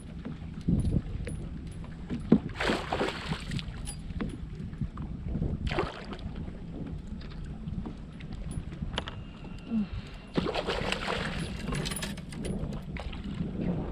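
Water splashing in bursts beside a fishing kayak as a hooked bass is fought close to the boat, over wind on the microphone. A sharp knock sounds about two seconds in.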